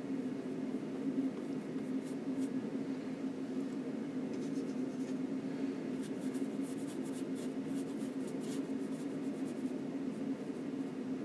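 Soft scratchy strokes of a long flat oil-painting brush dragging paint across a linen panel: a few around two seconds in, then a longer run from about four to eight and a half seconds. A steady low hum runs under them and is the loudest sound.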